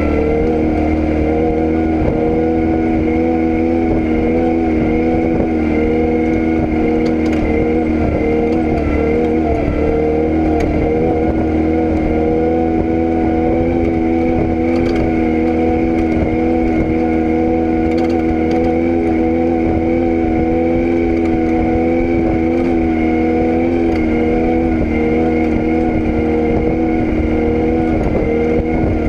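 Vehicle engine running at a steady, unchanging speed: an even, pitched drone with a constant rushing noise underneath, and no rise or fall in pitch.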